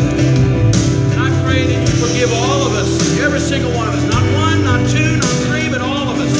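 Worship music with a steady beat and held chords, with singing over it.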